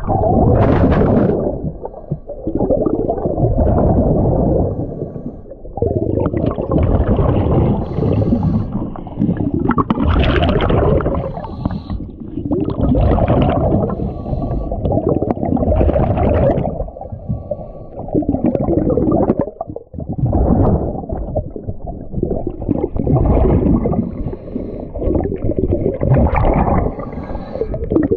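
A scuba diver breathing through a regulator underwater, with a rush of exhaled bubbles in repeated bursts every two to three seconds.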